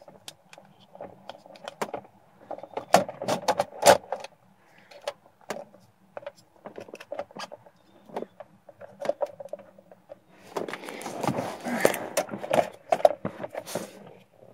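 Scattered sharp clicks, taps and rattles of small plastic and metal parts being handled: a USB power meter and constant current load tester being fitted into a dashboard USB port. About ten seconds in, the clatter and rustling get denser for a few seconds.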